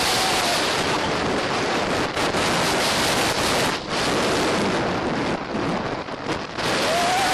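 Heavy wind rushing over the microphone as a rider is carried through the T3 inverted roller coaster at speed. The noise eases briefly about four seconds in and again near six seconds, and a faint wavering whine shows near the start and near the end.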